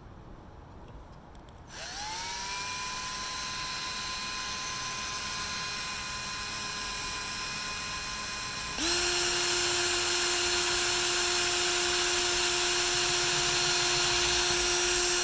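Electric drill with a pilot-hole bit, drilling pilot holes in wood: the motor spins up about two seconds in and runs with a steady whine, then about nine seconds in shifts abruptly to a lower, louder whine and stops at the end.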